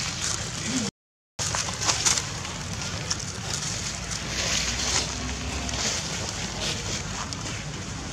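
Dry fallen leaves rustling and crackling underfoot, with a low rumble of wind on the microphone; the sound drops out completely for a moment about a second in.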